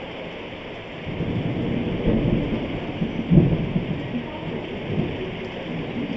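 Heavy monsoon rain pouring on a street, with a roll of thunder that rumbles in about a second in and is loudest a little past the middle.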